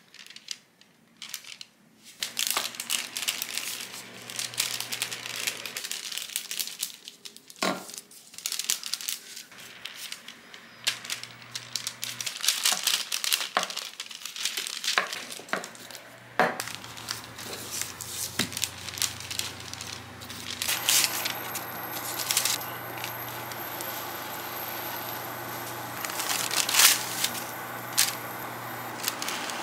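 Parchment paper crinkling and rustling as a croissant is wrapped in it and pressed flat under a can rolled over the sheets, with scattered crackles and taps. About two-thirds of the way through, a steady hum with a faint high whine comes in as a frying pan sits on the cooktop.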